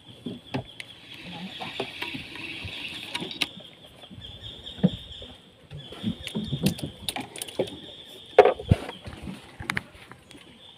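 Scattered knocks and clicks of fishing tackle being handled in a small wooden boat, over a steady high buzz; one louder knock about eight seconds in.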